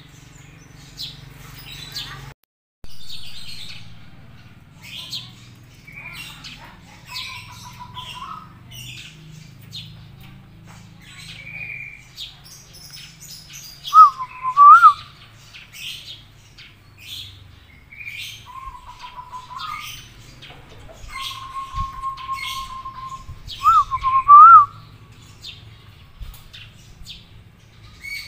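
Zebra dove (perkutut) calling in short whistled coo phrases, the loudest about halfway through and again near the end, while small birds chirp throughout.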